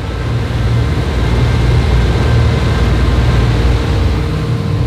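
Cabin cruiser's engine running at speed under way, a steady low drone under a rushing hiss of wind and water, growing a little louder in the first second or two.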